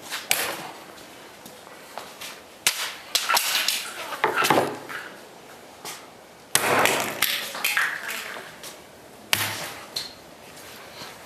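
A series of sharp chopping strikes from a large competition cutting knife slicing through targets, about seven blows spread irregularly, some in quick doubles.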